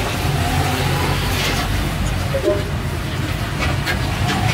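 Steady low rumble of street traffic, with a few short clicks above it.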